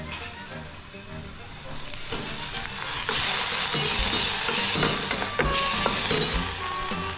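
Chopped tomatoes frying with onions in hot mustard oil in a steel pot: the sizzle swells about two to three seconds in and stays loud, while a metal spatula scrapes and knocks against the pot as it stirs.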